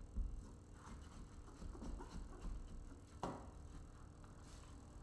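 Faint handling noises from working a vinyl decal onto a car window: scattered soft rubs and small clicks, with one sharper knock about three seconds in.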